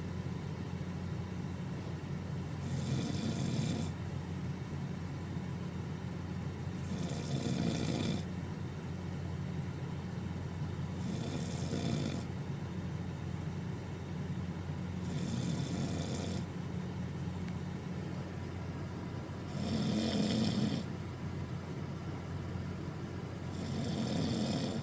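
Snoring: slow, regular breaths about every four seconds, each a roughly one-second rasping, hissing snore, six in all, over a steady low hum.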